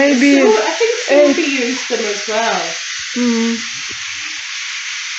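Food sizzling in a frying pan, a steady hiss, with people talking over it for the first few seconds.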